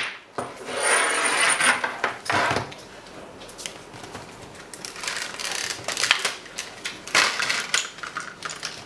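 Handling noise from a TIG welding torch hose package being lifted, uncoiled and set down on a wooden workbench. A loud rustle and scrape comes in the first couple of seconds. Scattered light knocks and clicks follow as the torch and the plastic tray of consumables are handled.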